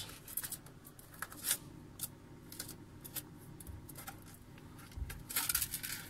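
Scattered light clicks and scratches of a hand handling the plastic inner lining of a refrigerator, with a louder rustle a little after five seconds in.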